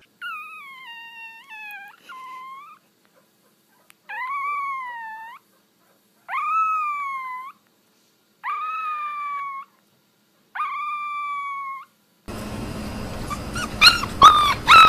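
A small puppy howling: five thin, high howls, each a second or two long, rising and then falling in pitch, with short silences between them. Near the end, short cries from another puppy come over background noise.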